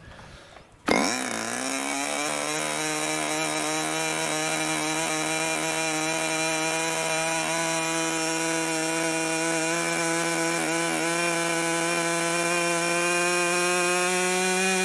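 Webra Silverline .61 two-stroke ringed glow engine with an 11x7 propeller starts abruptly about a second in on an electric starter. It then runs steadily at a high buzzing pitch, picking up speed slightly near the end while being tuned at the carburettor.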